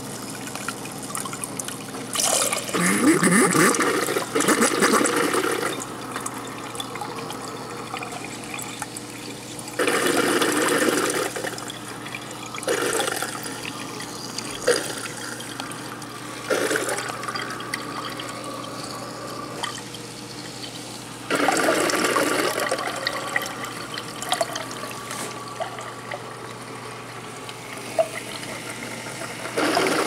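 Whirlpool side-by-side refrigerator's door water dispenser running a stream into a glass cup, flushing a newly installed water filter. The flow is steady, growing louder several times for a second or few.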